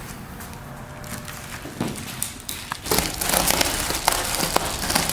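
Crinkling and rustling of sheet insulation being handled, with many small crackles. It is faint at first and gets busier and louder about three seconds in.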